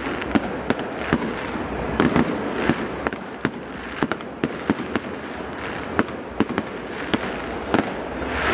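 Aerial fireworks bursting overhead: an irregular string of sharp bangs, several a second, over a steady background noise.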